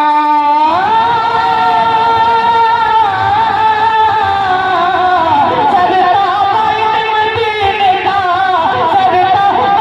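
A male voice singing a naat in long, ornamented held notes: a wavering note at the start, a glide up to a higher note held for several seconds, then a winding, ornamented descent.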